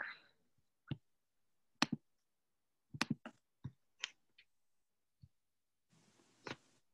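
Computer mouse clicking: a scattering of single sharp clicks at irregular intervals, a few in quick succession about three seconds in, with a brief soft hiss near the end.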